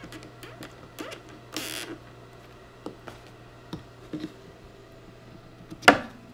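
Needle-nose pliers gripping and working wooden dowels out of a sofa frame joint: scattered small clicks and a short scrape, with one sharp knock near the end.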